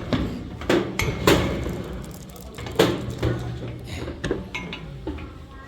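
A handful of sharp knocks and clinks, irregularly spaced, over a steady low hum.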